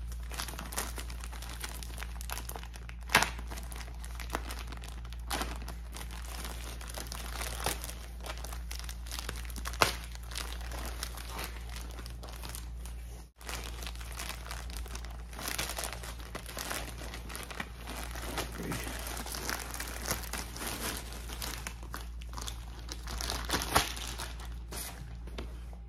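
White plastic courier mailer crinkling and tearing as it is cut and pulled open with a knife, with louder sharp crackles now and then. Near the end, the black fabric bag inside rustles as it is drawn out.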